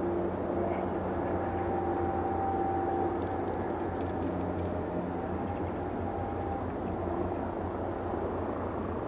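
Distant Airbus Helicopters EC145T2 (BK117D-2) in flight: a steady rotor and turbine drone with a low rumble and a few faint held tones.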